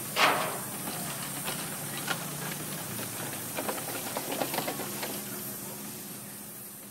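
Steam crane venting a loud burst of steam just after the start, followed by a run of light clanks and ticks from the machinery over a steady low hum as the clamshell bucket is worked; the sound fades near the end.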